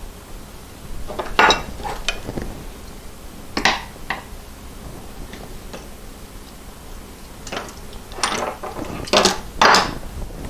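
Metal shift linkage parts being handled and set down, giving several separate clinks and knocks, the loudest near the end.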